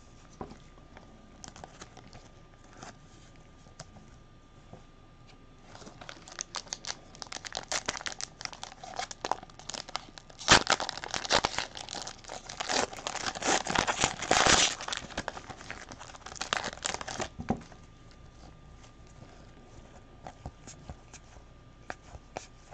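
Foil trading-card pack wrappers being torn open and crinkled by hand. Scattered light clicks and rustles give way at about six seconds to a dense stretch of crackling that is loudest in the middle and dies back to a few ticks after about seventeen seconds.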